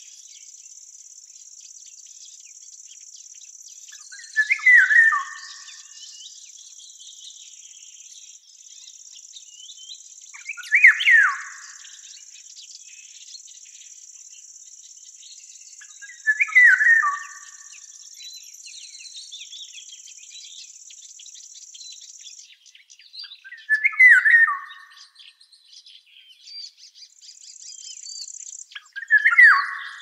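A songbird repeating the same short, descending song phrase about every six seconds, five times, over a steady high-pitched insect trill that stops about two-thirds of the way through.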